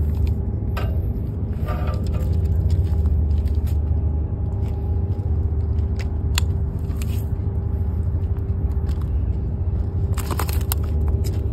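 A steady low rumble with a faint steady hum, dotted with scattered small clicks and knocks, and a short burst of rattling clicks about ten seconds in.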